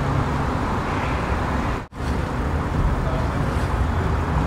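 Steady city street noise: a low traffic rumble. It cuts out for an instant about two seconds in.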